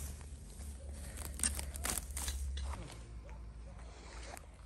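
Green plant stems being torn and pulled up by hand, leaves rustling, with a run of crisp snaps in the first half that thin out toward the end.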